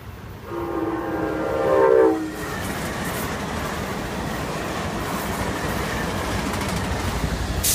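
Amtrak Cascades Talgo passenger train sounding its multi-tone horn as it approaches, loudest about two seconds in, the chord dropping in pitch as it cuts off. Then the steady rumble and rush of the low-slung Talgo cars passing close by on the rails.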